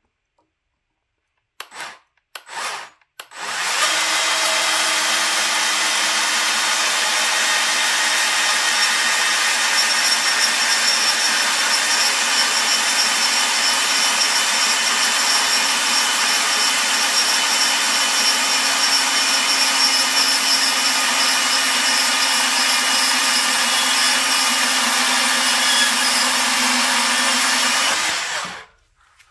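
Power tool cutting a mounting bracket off a Bilstein shock absorber body: two short blips, then about 25 seconds of steady, loud cutting that stops near the end.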